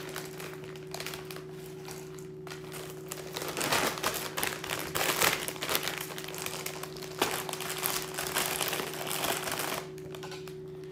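Crinkly plastic Doritos chip bag handled and crumpled, crackling and rustling in bursts from about three and a half seconds in until near the end, loudest early on in that stretch. A steady low hum sits underneath.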